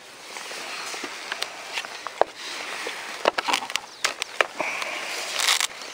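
Hands handling the flight battery and its wiring in the battery bay of a foam RC plane's fuselage: rustling and scraping with scattered light clicks of plastic and connectors.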